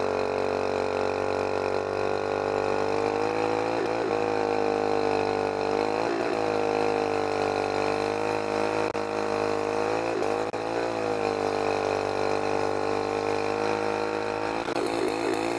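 Small gasoline mud motor (a Thailand-style long-tail outboard) running steadily, heard from aboard the jon boat it drives, its pitch dipping and recovering briefly a few times.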